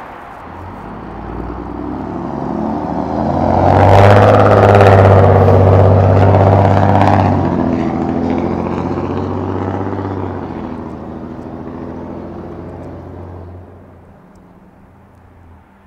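A fire engine's diesel engine is heard passing close by and then pulling away down the road. The engine note rises as the truck approaches, is loudest for a few seconds at the pass, and fades steadily as it drives off into the distance.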